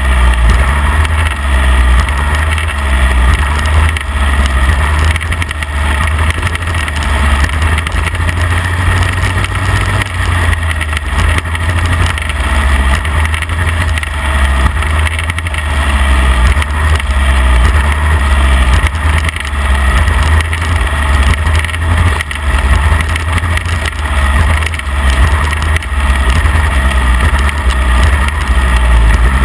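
Midget race car engine running hard through hot laps on a dirt track, heard from inside the open cockpit, loud and steady with small rises and falls in level.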